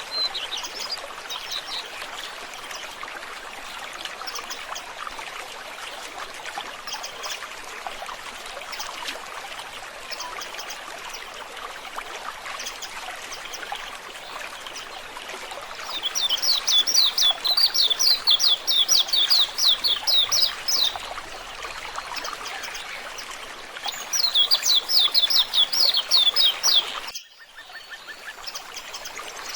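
Japanese white-eyes calling with thin, high chirps over a steady trickle of running water. Two loud runs of rapid, falling high notes come about halfway through and again near the end, the second cutting off abruptly.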